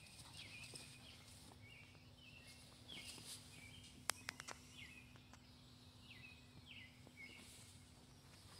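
Faint outdoor ambience with a bird chirping short notes over and over, and a quick run of three or four sharp clicks about four seconds in.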